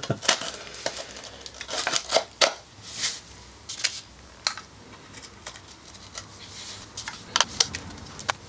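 Light metallic clinks, taps and rattles of small metal parts being handled on a bench, scattered irregularly with a few sharper clicks.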